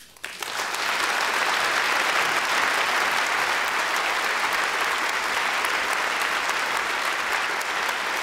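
Theatre audience applauding, building up within the first second and holding steady, easing off slightly near the end.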